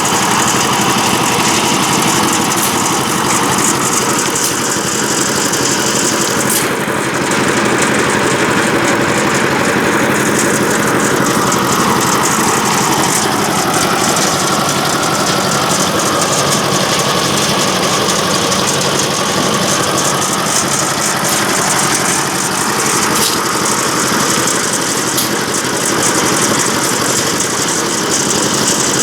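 Concrete mixer machine's engine running steadily and loudly, with no break or change in speed.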